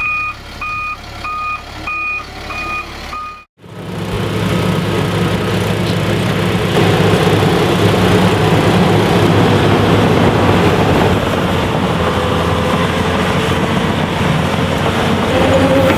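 A heavy-equipment backup alarm beeps about six times over a diesel engine. Then the diesel engines of earthmoving machinery (excavator and bulldozer) run steadily under load, with mechanical clatter.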